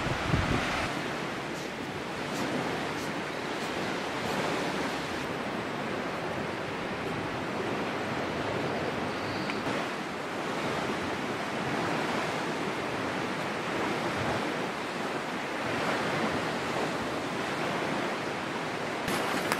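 Lake waves washing onto the shore with wind, a steady rushing noise that swells and eases gently. A single knock sounds just after the start.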